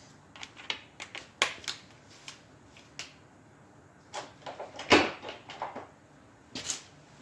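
Socket and nut clicking and clinking against the shock's metal mounting stud as the nut is started on, in irregular sharp clicks with one louder knock about five seconds in.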